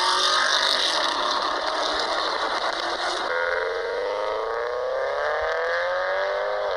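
Car engine recordings played back through a phone's small speaker: one car's engine, then, about three seconds in, a Subaru Forester's engine revving up slowly and steadily.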